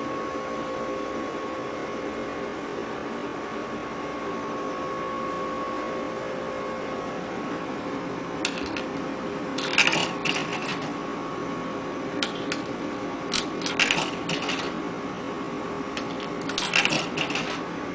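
Coins being fed into a drink vending machine's coin slot, clicking and rattling through the coin mechanism in a few short bursts that start about halfway through, over a steady hum.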